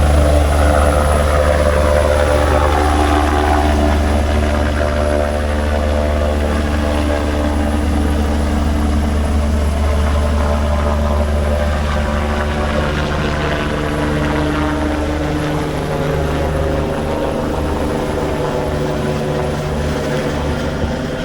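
Medical helicopter running during take-off: a steady low rotor beat under a pitched engine whine, slowly getting fainter. The low beat breaks up in the last few seconds.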